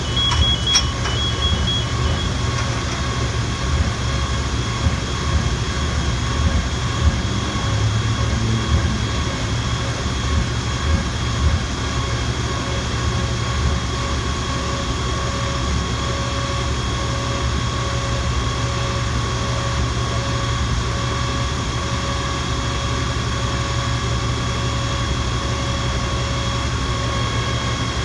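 Fire engine's engine running steadily at close range, a low rumble with a thin steady whine above it.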